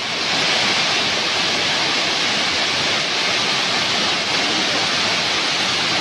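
Waterfall cascading down a broad rock face into a pool: a steady, even rush of falling water.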